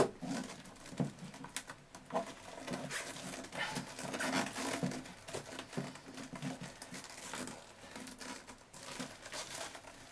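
Ribbed plastic Kirby fill tube being screwed by hand onto the bag boot, rubbing against the cloth outer bag: irregular scratchy rustling and crinkling, with a sharp click right at the start.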